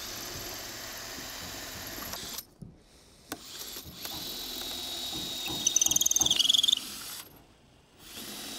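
Festool C 15 cordless drill boring holes through a cedar post, running in three stretches with brief stops between. A loud, high, chattering squeal comes from the bit cutting the wood a little past halfway.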